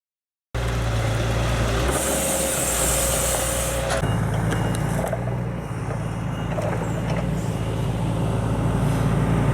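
Heavy Scania truck diesel engine running steadily. About two seconds in there is a high compressed-air hiss lasting a couple of seconds, and the engine note shifts slightly after it.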